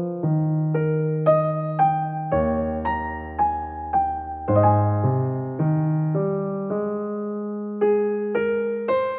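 Background piano music: a gentle melody of single struck notes, about two a second, over held bass notes.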